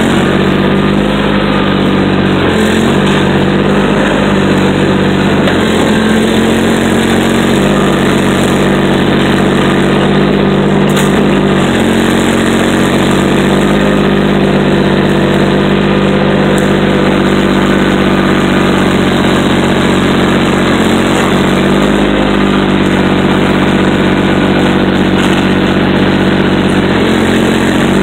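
Heavy diesel machinery running loud and steady: the engines of a large yellow debris-processing machine and a Komatsu excavator working piles of tree debris. The engine note dips slightly a few times and recovers.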